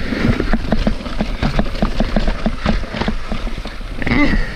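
Mountain bike clattering down a rough, rocky trail: a quick irregular run of knocks and rattles from the bike over a low rumble of tyres and wind, with a brief grunt or breath near the end.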